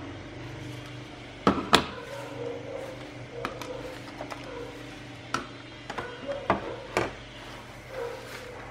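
Handling noise: sharp clicks and knocks as circuit boards and a plastic programmer box are handled and laid down in a monitor's plastic case, the two loudest close together about a second and a half in, over a steady low hum.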